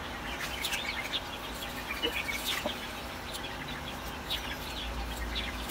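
Birds chirping in short scattered calls over a steady low hum.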